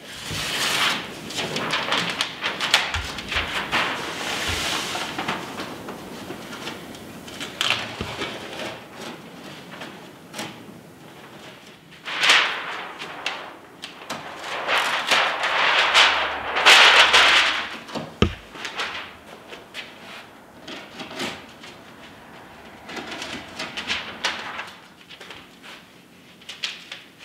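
Tyvek housewrap rustling and crinkling in irregular bursts as the cut flaps are folded back into a window rough opening and taped down. The loudest bursts come about twelve and sixteen seconds in.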